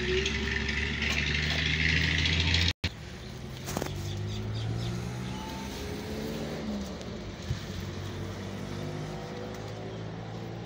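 Steady hiss over a low machine hum, cut off abruptly about three seconds in. Then a quieter hum of distant engines, with faint tones slowly rising and falling and a few light clicks.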